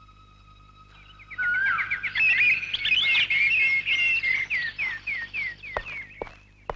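Small birds chirping and twittering in a busy chorus of quick, falling chirps, starting about a second and a half in over a faint steady tone. A few sharp clicks come near the end.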